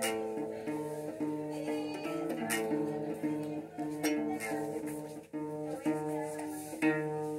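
Music with plucked-string chords, punctuated by sharp percussive hits about every one and a half to two and a half seconds.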